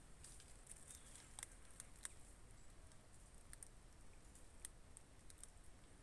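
Near silence: quiet forest ambience with a faint high hiss and scattered soft clicks.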